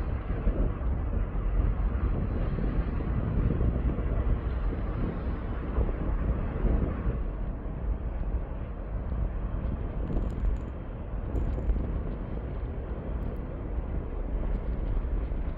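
Low, uneven outdoor rumble with wind buffeting the microphone.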